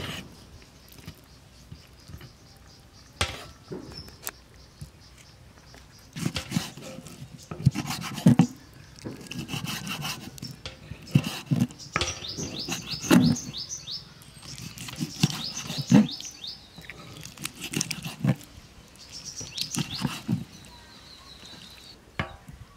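Knife chopping chicken liver and gizzards on a wooden cutting board: irregular sharp knocks, some in quick runs. A run of high chirps comes through in the middle.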